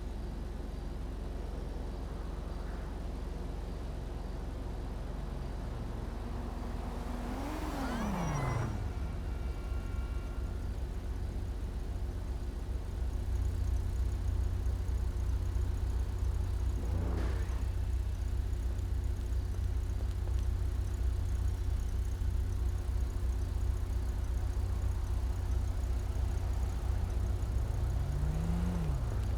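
Mazzanti Evantra Millecavalli's twin-turbo LS7 V8 idling, blipped once with a quick rev up and back down about seven seconds in and again, more lightly, near the end. The idle grows louder about halfway through.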